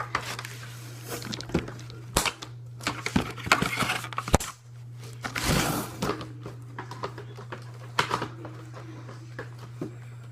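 Packaging of a boxed Nerf blaster being handled: scattered knocks, clicks and rustles of cardboard and plastic, over a steady low electrical hum.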